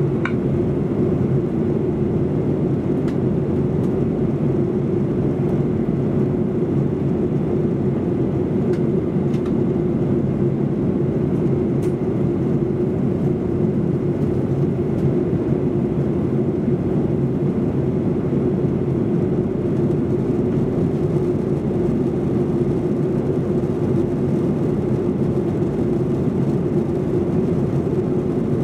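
Steady in-cabin drone of a Boeing 737-800 airliner in flight during its descent for landing: engine and airflow noise with a steady hum running through it.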